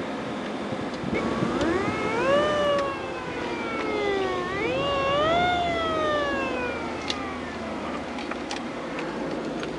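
Alternator whine through the car stereo's speakers: a high, pitched whine that follows engine speed, climbing quickly and falling slowly, twice, as the engine is revved. It is the engine noise that a poor audio ground lets into a car sound system.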